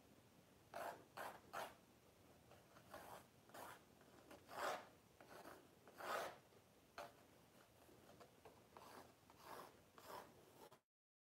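A pencil sketching on a canvas: a run of short scratchy strokes, a few of them drawn out longer, with the loudest about halfway through. The sound cuts off to dead silence just before the end.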